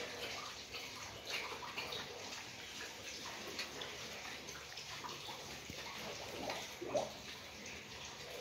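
Piglets sucking and chewing on a person's fingers: a run of wet slurping and smacking mouth sounds, with one louder short sound about seven seconds in.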